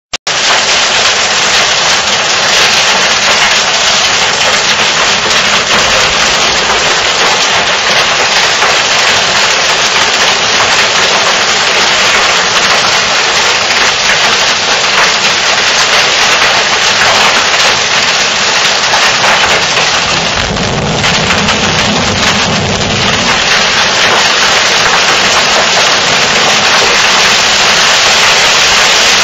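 Hail and rain pelting a wooden deck: a loud, dense, steady clatter of small hailstones striking the boards.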